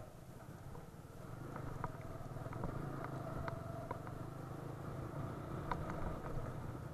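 Motorcycle engine running steadily at low speed on a rough stony dirt track, a low rumble that picks up slightly about a second in, with scattered light clicks and knocks from the gravel and rattling parts.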